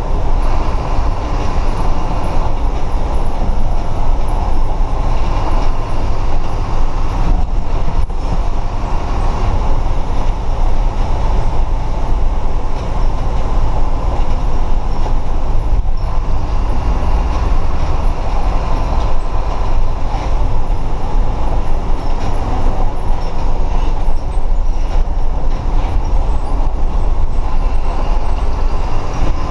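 Caio Apache Vip 2 city bus heard from the driver's seat while driving in heavy rain: a steady, loud running noise of engine and drivetrain rumble mixed with tyre hiss on the wet road.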